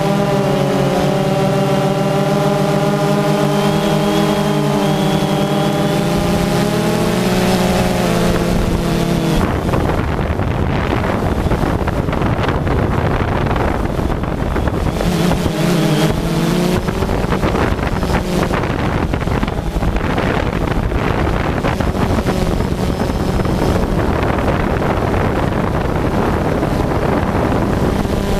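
DJI Phantom 2 quadcopter's motors and propellers whining steadily as it hovers, picked up by the GoPro Hero 3 mounted on it: several close tones drifting slightly in pitch as the rotors adjust. After about nine seconds wind buffeting on the microphone drowns out most of the whine, which comes back clearly near the end.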